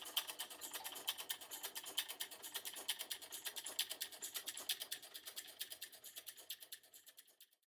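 Many small electromechanical relays clicking rapidly and irregularly, several clicks a second, thinning out and dying away near the end.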